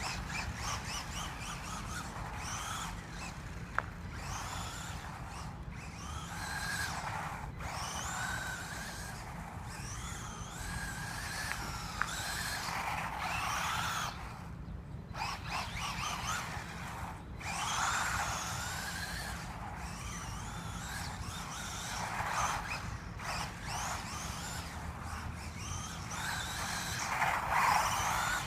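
Remote-control car's motor whining, its pitch rising and falling again and again as it speeds up and slows down.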